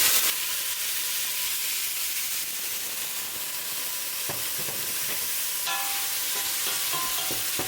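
Squid pieces frying in hot oil in a pan, a steady sizzle that drops a little in level just after the start and then holds even, with a few faint ticks.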